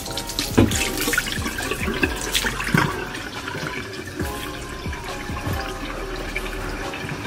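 Background music with low thumps at a fairly even beat and held, stepping notes, over a steady hiss.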